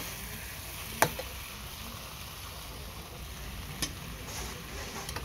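Tofu and shredded coconut heart sizzling in a nonstick frying pan while a metal spatula stirs them, with a sharp clink of the utensil against the pan about a second in and a fainter one about four seconds in.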